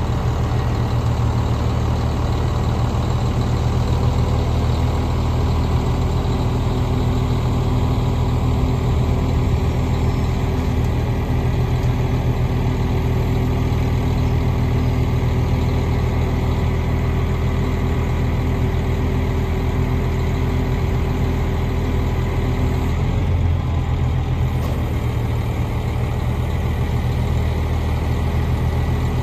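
The truck's Cummins diesel engine idling steadily while the hydraulic side discharge auger is raised. A steady hum in the sound stops and the engine note shifts slightly about 23 seconds in.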